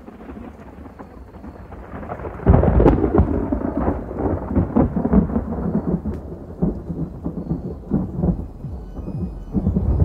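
A rumbling, thunder-like sound, like a thunderstorm, that fades in and jumps sharply louder about two and a half seconds in, then rolls on unevenly.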